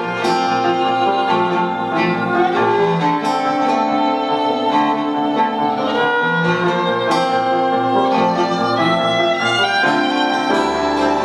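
Instrumental music played live by a small string-led band: a violin holding long melody notes over plucked guitar and lower string parts, with a deeper bass note entering near the end.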